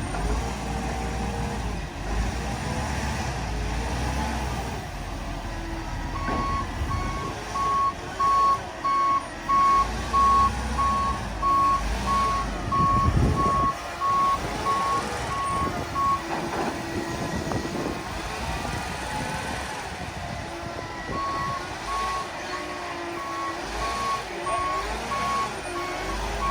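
Concrete mixer truck's reversing alarm beeping about once a second over its diesel engine running. The beeping stops for a few seconds in the middle, then starts again.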